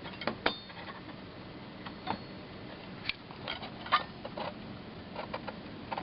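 Scattered light clicks and taps of small parts being handled as the oil pressure gauge is worked out of an old truck's dashboard instrument cluster, with a sharper click about half a second in and another about four seconds in.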